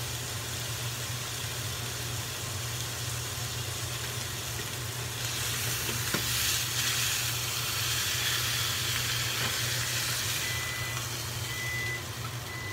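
Thin steak topped with jalapeño slices sizzling in a hot frying pan, the sizzle louder for a few seconds about halfway through as a spatula is worked under it to lift it out. From about ten seconds in, a short electronic beep repeats about once a second.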